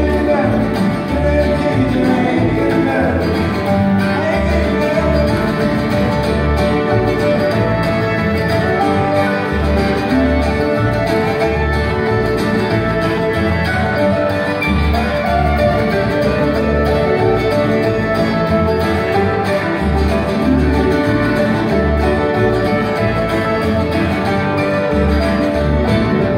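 Live acoustic bluegrass band playing: fiddle, mandolin and acoustic guitar over an upright bass plucking a steady low beat.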